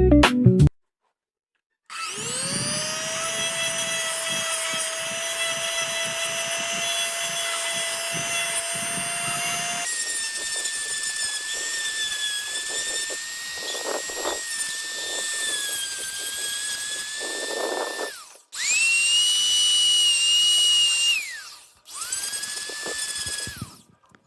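Small high-speed power tool motor whining steadily as it works PVC pipe. Its pitch jumps up about ten seconds in. It stops, then starts twice more for shorter runs near the end.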